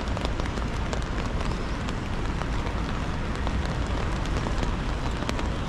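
Steady rain with many small, sharp raindrop ticks over a low, steady rumble of city traffic on a wet street.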